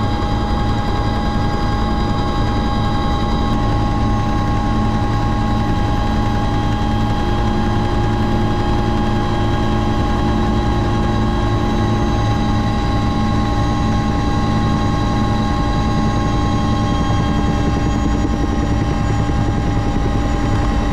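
Helicopter in steady flight heard from on board: a constant low rotor drone with several steady whining tones over it, unchanging throughout.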